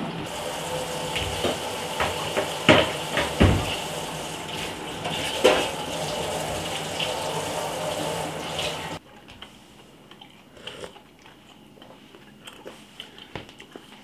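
Tap water running into a kitchen sink, with a few knocks of dishes or a pot. It cuts off suddenly about nine seconds in, leaving only faint clicks.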